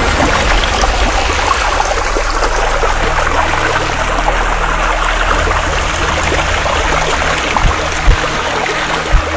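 Shallow river water rushing and splashing steadily, with a few short low thuds near the end.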